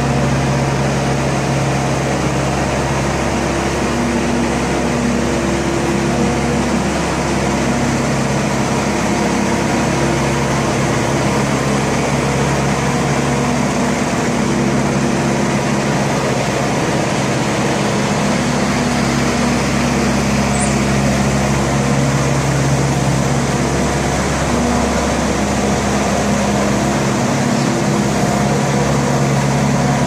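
Diesel engine of a JCB tracked skid-steer loader running steadily under load as it grades sand with a leveller blade. Its note wavers slightly as it works.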